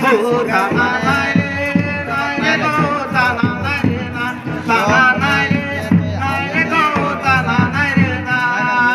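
Jhumur folk song: a singing voice over a steady hand-drum beat, accompanying the dance.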